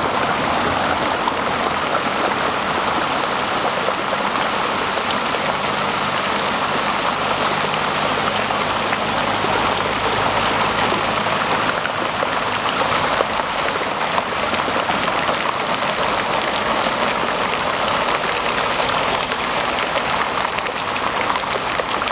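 Floodwater rushing steadily across a road surface, a constant gushing hiss of shallow running water.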